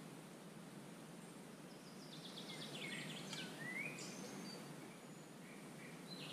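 Woodland ambience: a steady low background hiss, with a songbird singing a short phrase of quick high chirps and whistles about two to four seconds in, and a few fainter chirps elsewhere.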